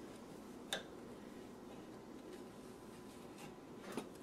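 Knife scoring dry, crumbly fudge in a glass pie dish, the blade clicking sharply against the glass about a second in and again near the end, over a faint room hum.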